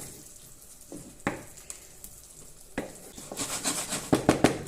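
Tempeh sizzling in a frying pan with barbecue sauce just added, with a few knocks of a utensil against the pan. Stirring and scraping picks up in the last second or so, with several sharp knocks.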